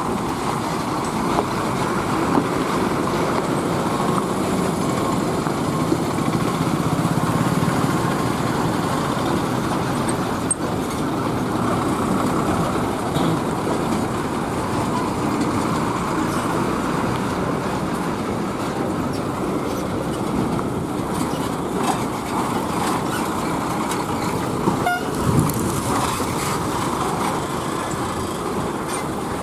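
Road traffic with heavy trucks running past: a steady rumble of engines and tyres.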